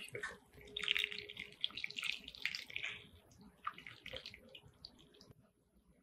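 Pan gravy poured from a saucepan over chicken thighs in a glass dish: a splashing, trickling pour that starts about a second in and lasts around two seconds, then a few light clicks.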